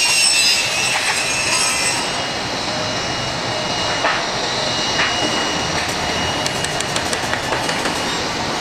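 Boeing 787 airliner's turbofan engines heard across the airfield: a steady rushing noise, with a high whine falling in pitch over the first two seconds, then a thin steady high tone. Two short clicks about four and five seconds in.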